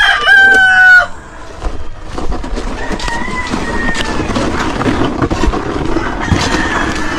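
A rooster crows loudly, the call ending on a falling note about a second in; a second, fainter crow follows around three to four seconds in, over a background of scraping and small knocks.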